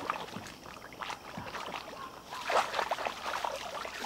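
Lake water splashing and sloshing as a person swims and wades, with a few short splashes about a second in and again near the three-second mark.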